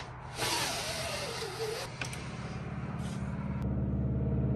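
Electric motor of a roof-window blind humming steadily as the blind opens, getting louder about three and a half seconds in. A loud rushing hiss with a wavering whine runs from about half a second to two seconds in.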